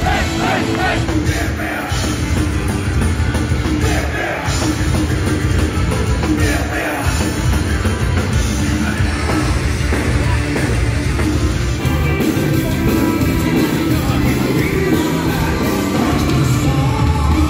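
Folk metal band playing live: loud distorted electric guitars, bass and drums with singing, heard from within the crowd.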